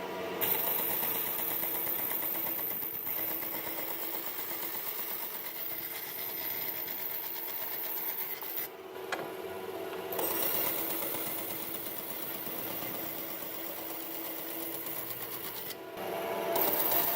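Electric woodworking machine running steadily, its sound shifting briefly about halfway through and again near the end.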